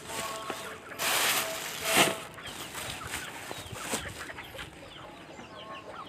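Chickens clucking, with a loud rustle of plastic bags and woven sacks being handled between about one and two seconds in.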